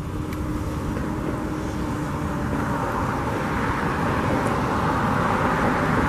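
Road traffic: a vehicle approaching, its road noise growing steadily louder.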